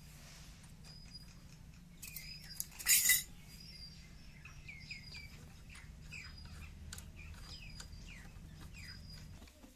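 Metal parts and tools clinking and tapping during sewing machine servicing, with a louder clatter about three seconds in. Small birds chirp repeatedly in the background over a steady low hum.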